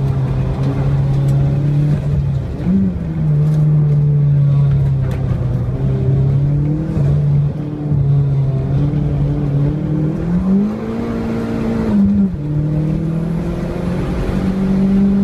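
Turbocharged Scion tC four-cylinder engine heard from inside the cabin at race pace, holding a fairly steady note through the corners. About ten seconds in the revs climb, drop briefly near twelve seconds, then climb again as it accelerates out of the last turn.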